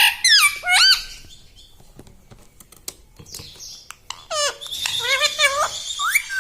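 Pet rose-ringed (ringneck) parakeet squawking in sharp calls that swoop up and down in pitch: a loud burst at the start, a quieter stretch with small clicks, then another run of calls and quick chatter from about four seconds in.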